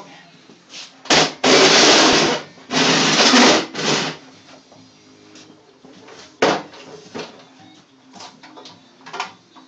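Power tool cutting a piece of rebar in two bursts of about a second each, with a shorter third burst just after. Scattered knocks and clinks of metal follow.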